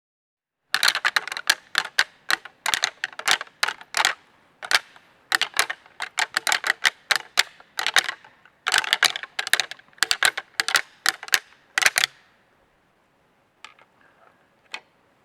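Rapid clusters of sharp, hard clicks and clacks that go on for about eleven seconds and stop abruptly.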